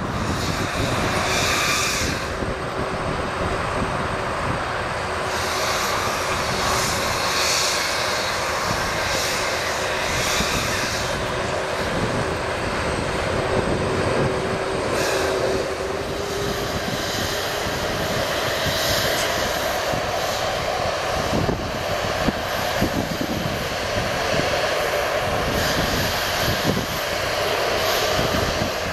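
McDonnell Douglas MD-11F trijet freighter's jet engines running at low taxi power as the aircraft rolls slowly along the runway: a steady jet whine over rumble. About halfway through, the whine's pitch shifts higher.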